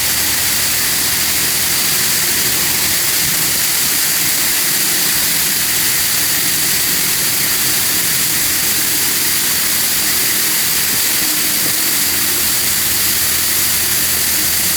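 Touchless car wash spraying high-pressure water onto the car: a loud, steady hiss with a faint low hum underneath.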